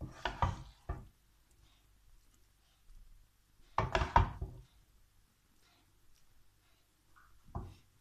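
A serving spoon knocking and scraping against the cooking pot and plate as pasta is dished out: a cluster of knocks at the start, another about four seconds in, and a brief one near the end.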